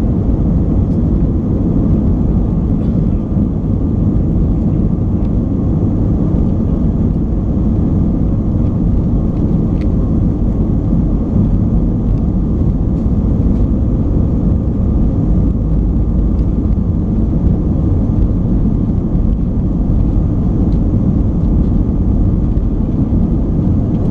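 Airbus A319 heard from inside the cabin over the wing during the takeoff roll: the jet engines at takeoff thrust and the wheels rolling on the runway make a steady, loud, low rumble.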